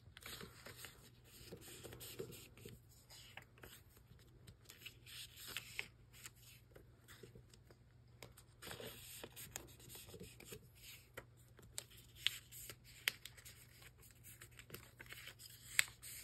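Faint rustling and scraping of plastic nine-pocket binder pages as paper filler cards are slid into their pockets, with a few short sharp ticks, the sharpest near the end.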